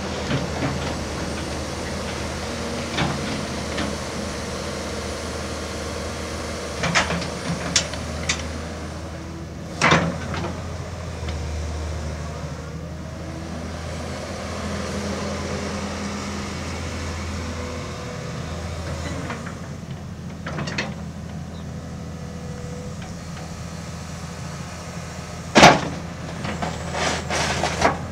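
Caterpillar 320CL hydraulic excavator's diesel engine running steadily under load as the machine swings and works its boom and bucket, with a scatter of sharp metal clanks, the loudest near the end.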